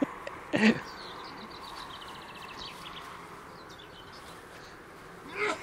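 A small bird singing a quick trill of evenly spaced notes that falls slightly in pitch, about a second in, with a few higher chirps after it, over a steady low background hiss. A short voice-like sound near the end is the loudest thing.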